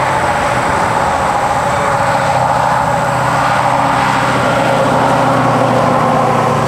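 A steady mechanical drone of a running engine, with a constant low hum under higher tones.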